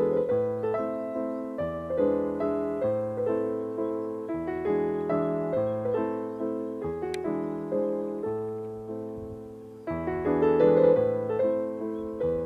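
Background piano music: a gentle melody of single notes over slow bass notes, each note struck and fading.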